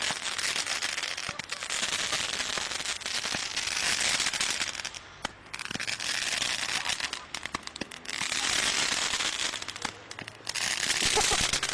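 Ground-level fireworks going off and throwing sparks across the ground: a loud, dense hiss full of rapid crackles and pops. It comes in several long bursts, with short breaks about five, eight and ten seconds in.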